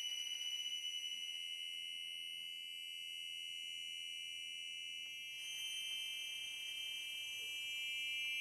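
Contemporary chamber-ensemble music: a few high, near-pure tones held close together in a steady sustained cluster. The upper overtones shift slightly about five seconds in.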